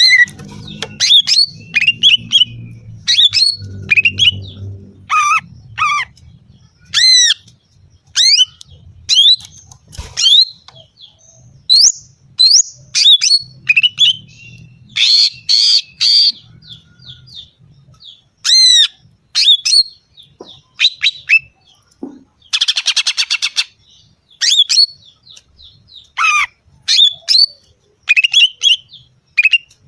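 Female greater green leafbird (cucak ijo) calling. It gives a quick series of sharp, sweeping chirps and squawks. About two-thirds of the way through comes a harsh buzzy rattle lasting a second or two.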